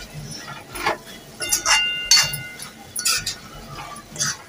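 Metal spatula scraping and knocking against an aluminium kadhai while stirring cluster bean curry that has been cooked dry. There are about half a dozen strokes, some with a short metallic ring.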